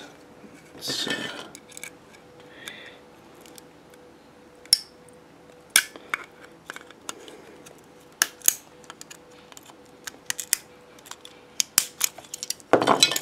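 Hard plastic clicking, ticking and snapping as a small plastic power-adapter case is worked apart with pliers, with a short scrape about a second in and a denser burst of scraping near the end.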